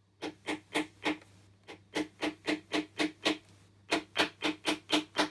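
StewMac dead-blow hammer tapping stainless steel frets down into a Norman acoustic guitar's fingerboard over the body. The taps come in three quick runs, about four a second, with short pauses between runs.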